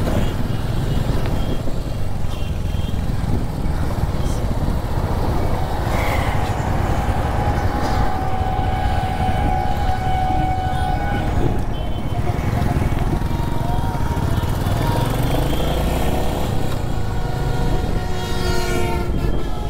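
Riding a Royal Enfield Hunter 350 motorcycle through traffic: a steady low rumble of engine and wind on the microphone. Other vehicles' horns sound over it, one held for a few seconds about six seconds in and another near the end.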